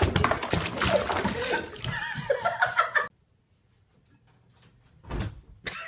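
Water splashing and sloshing in a bubble bath as a kitten tumbles in, with a person laughing; it cuts off suddenly about three seconds in. Near the end, a single dull thump.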